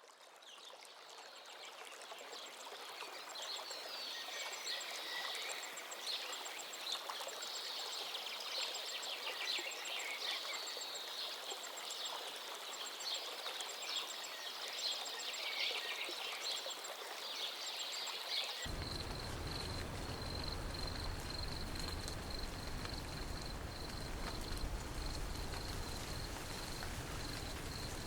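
Outdoor nature ambience fading in: birds chirping over a steady water-like hiss. About two-thirds of the way through it changes abruptly to a steady high trill, with a low rumble underneath.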